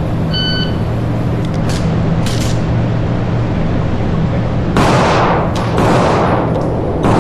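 Electronic shot-timer start beep, then after a few seconds three loud handgun shots about a second apart, each with an echoing tail, as a shooter starts an IDPA stage. A steady low hum runs underneath.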